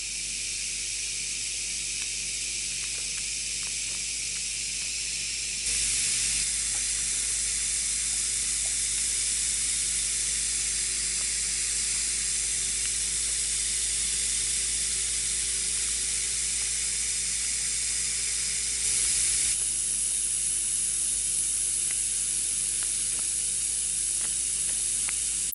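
High-voltage corona discharge from a 3 kV flyback driver: a steady sizzling hiss with faint crackles over a low electrical hum. It gets louder about six seconds in and shifts again near the end.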